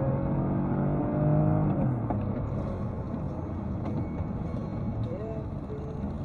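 Car driving on a wet road, heard from a dashcam inside the cabin: steady engine and tyre noise, with a held tone over it for the first two seconds.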